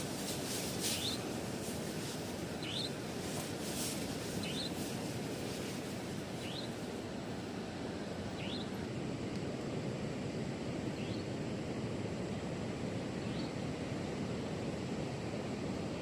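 Steady low noise of wind and surf at a beach, with a small animal giving short rising chirps every second or two that fade out after about thirteen seconds.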